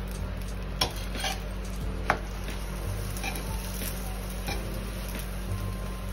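Steel spatula tapping and scraping on a tawa as a paratha frying in ghee is flipped and pressed down. There are a few sharp clicks, the loudest about two seconds in, over a steady light sizzle.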